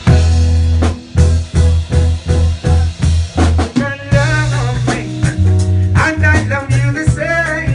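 Live reggae band playing: a pulsing bass line and drum kit hits, with a higher melody line coming in over them about four seconds in.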